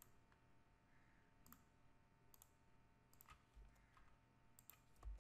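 Faint computer mouse clicks, several short isolated clicks spread over a few seconds with a small cluster near the end, over a low steady background hum.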